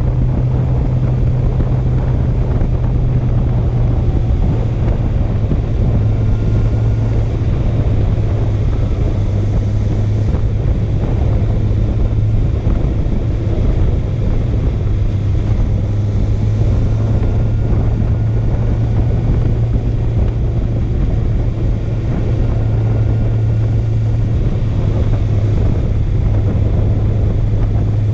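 Honda CB650F inline-four engine and exhaust running at a steady cruising engine speed while riding, dipping slightly about two seconds in, with wind buffeting the microphone.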